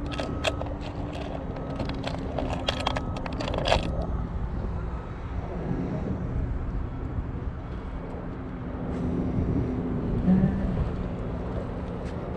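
Lures and trays clicking and clattering in a plastic tackle box as it is rummaged through, in quick rattles for about the first four seconds. A steady low engine hum of heavy machinery runs underneath throughout.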